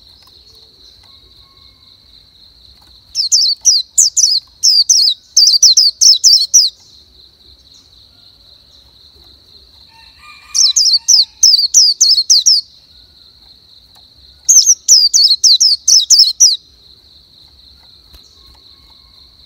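A bird singing: three bursts of rapid down-slurred chirps, about two seconds each, over a steady high-pitched buzz.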